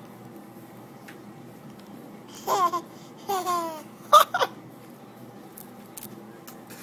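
A baby laughing in three short bursts, one after another, starting about two and a half seconds in; the last is the loudest and sharpest.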